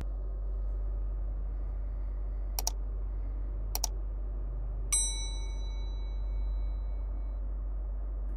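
Subscribe-button animation sound effects: two quick mouse clicks about a second apart, then a bright bell-notification ding that rings on and fades over about two seconds. A steady low hum runs underneath.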